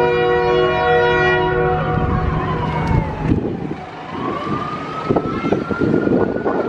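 A locomotive air horn holds a steady chord that cuts off about two seconds in. A siren then wails, falling slowly in pitch and rising again toward the end, over a rumbling noise with scattered knocks.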